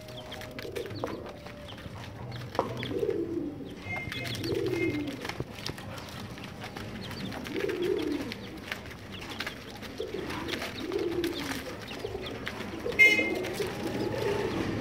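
A pigeon cooing: low, arched coos repeating every couple of seconds. Brief high chick chirps come twice, and light ticking sounds from chicks pecking on newspaper.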